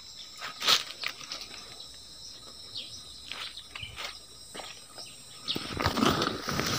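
Dry fallen leaves crackling and rustling underfoot, with scattered sharp crackles, over a steady high insect drone and a few short bird chirps. The rustling grows louder about five and a half seconds in.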